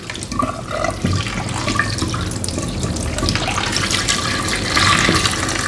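Kitchen tap running steadily into a stainless-steel sink, splashing as food is rinsed under it in a bowl and mesh strainer.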